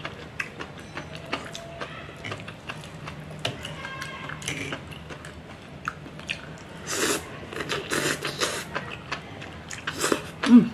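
Knife and fork clicking and scraping on a tray as an egg and enoki mushroom omelette is cut, with close-up chewing of the soft bites. Near the end a short, falling voice-like sound is the loudest thing.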